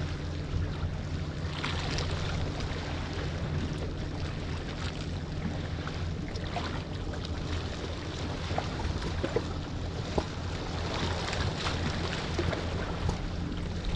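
Seaside ambience: wind on the microphone and water washing at the shore over a steady low hum, with a few small clicks around the middle.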